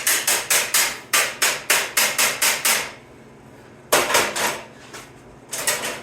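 Hammer tapping a sheet-metal patch panel to bring a low spot up into line, in quick blows about four a second. The blows stop briefly, with a few more near the middle and another run starting near the end.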